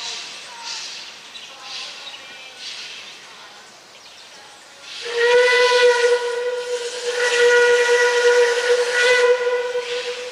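Puffing Billy steam locomotive 12A departing: a few soft exhaust chuffs about a second apart, then its steam whistle sounds about halfway through, a loud steady chord held for about five seconds with a couple of brief dips, fading near the end.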